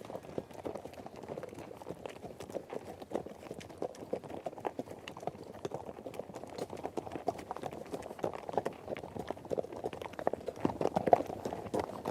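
Hooves of running horses: a fast, uneven stream of hoof strikes that grows louder about ten and a half seconds in.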